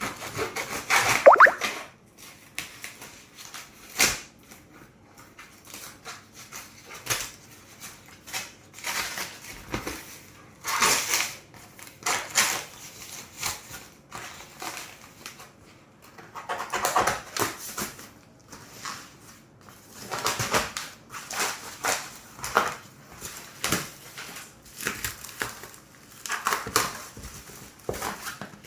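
A box and its packaging being opened and handled: irregular rustles, scrapes and knocks, with a sharp knock about four seconds in.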